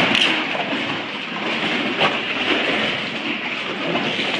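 Waves sloshing and slapping against the rock and the kayak inside a sea cave: a steady wash of water with a couple of sharper slaps.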